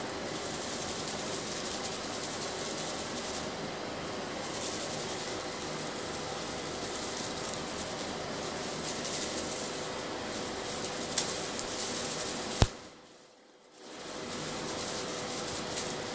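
Steady background hiss with a faint steady hum, broken about three-quarters of the way through by a sharp click and a brief drop to near quiet before the hiss returns.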